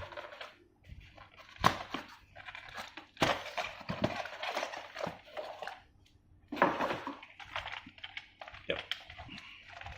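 Vacuum accessories and their packaging being handled: irregular knocks of hard plastic parts with bursts of rustling, crinkling wrapping.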